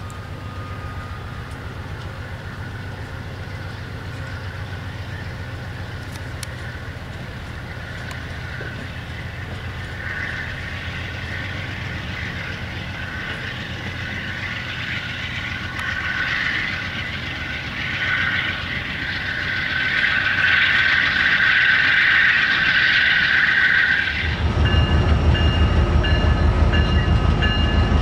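Amtrak Amfleet passenger cars rolling along the track past and away, a steady low rumble of wheels on rail, with a high rushing sound building louder through the second half. About four seconds before the end the sound changes abruptly to a louder passage of several steady held tones over a heavy low pulsing rumble.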